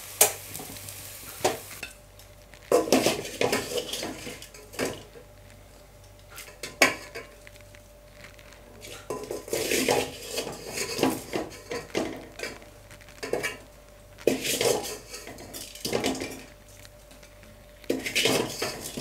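Wooden spatula scraping and knocking against a metal pot in irregular clatters as pan-fried potatoes are scooped out onto a plate. Hot oil sizzles for the first couple of seconds, then dies away.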